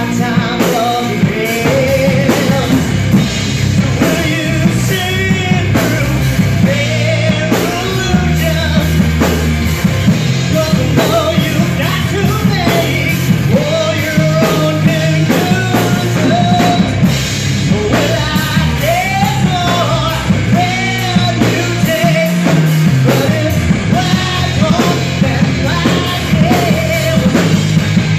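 Live rock band playing: a man sings lead over electric guitar, electric bass and a drum kit.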